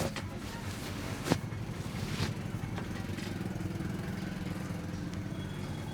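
Three sharp clicks from a head massage, the loudest just over a second in, over a steady low rumble of street traffic.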